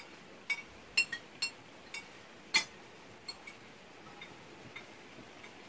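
Spoons clinking against soup plates as people eat: a scattering of light, ringing clinks, thickest in the first three seconds, the loudest about two and a half seconds in.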